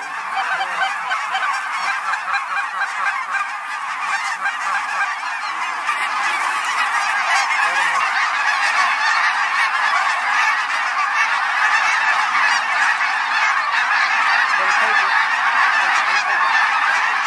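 Huge flock of Canada geese honking together in a dense, unbroken chorus of overlapping calls, growing gradually louder.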